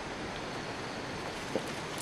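Steady outdoor background hiss with one soft tap about one and a half seconds in.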